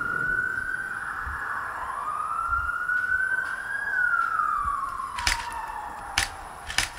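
A siren wailing, its pitch rising slowly, holding, then falling away before climbing again. A few sharp snaps come near the end.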